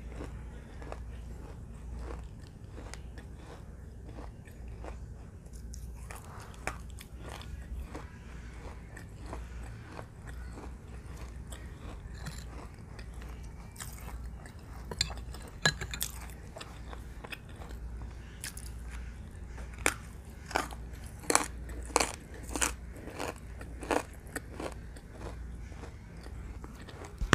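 Close-up biting and crunching of pieces of baked clay, a run of sharp crisp cracks with chewing between. The loudest bites come in a cluster past the middle.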